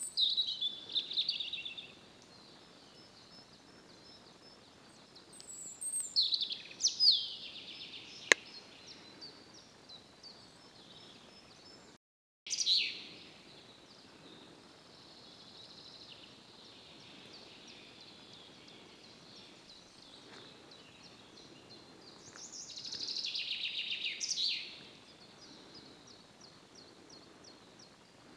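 Songbirds singing: short phrases of quick descending notes a few seconds apart over a faint hiss, with one sharp click about eight seconds in and a brief dropout about twelve seconds in.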